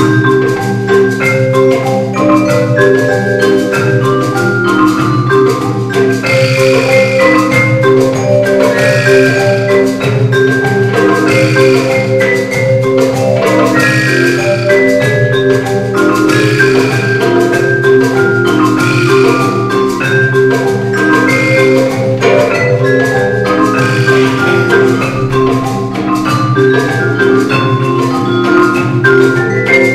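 A percussion ensemble playing a piece: marimba and vibraphone notes in a repeating pattern over sustained low tones, with a hand drum and a gourd shaker.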